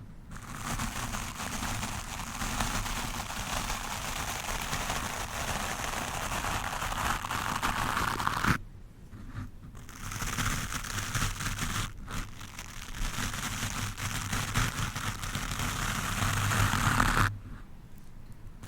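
A stiff-bristled wooden brush scrubbed hard across a microphone, giving a dense, scratchy crackling noise. It comes in two long spells of about eight seconds each, with a brief pause about eight and a half seconds in, and it stops shortly before the end.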